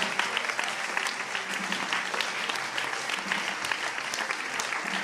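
Theatre audience applauding: a dense, steady patter of many hands clapping.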